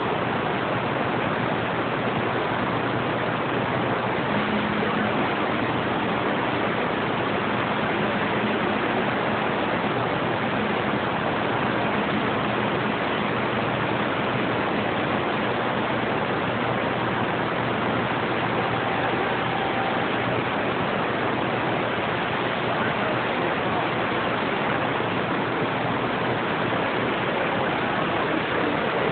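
Radio receiver static: a steady, even hiss from the open receiver while listening for a reply after a call, with no station coming back. Faint brief tones show through the hiss a few seconds in and again past the middle.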